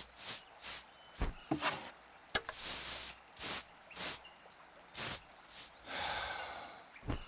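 Broom sweeping: a series of short bristle swishes, about a dozen strokes, some longer than others, with a few light knocks among them.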